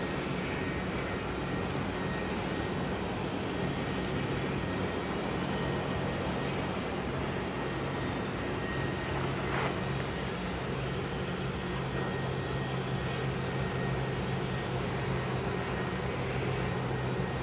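Steady low engine drone of distant machinery with a constant hum, growing slightly stronger about halfway through.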